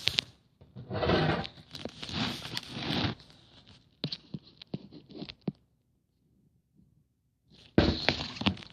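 Rustling and scraping handling noise for a few seconds, followed by a few light clicks and taps, then a short silence and another sudden rustle near the end.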